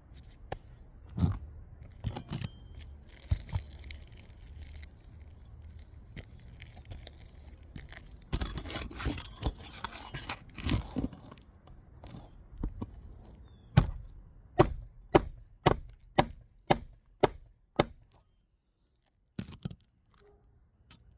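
Scattered knocks and a stretch of scraping and rustling, then a run of about ten sharp hammer strikes, roughly two a second, driving roofing nails through a replacement asphalt shingle.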